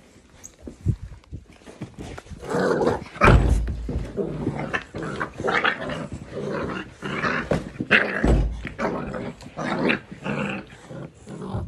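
Puppy growling in play, in repeated bouts close to the phone's microphone. The phone is being knocked about, with two heavy thumps a few seconds in and again about eight seconds in.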